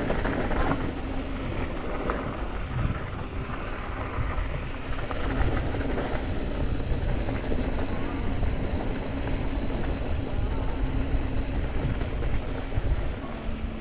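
Yeti SB165 full-suspension mountain bike riding fast down rocky dirt singletrack: tyres crunching over loose dirt and stones, with frequent small clicks and rattles from the bike, under a steady rush of wind on the microphone.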